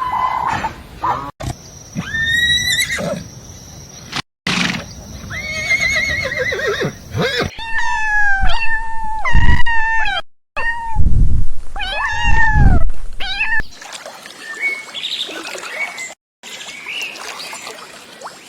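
A series of short farm-animal recordings cut together, each a different set of animal calls. In the middle comes a run of about five loud, drawn-out calls, each lasting under a second.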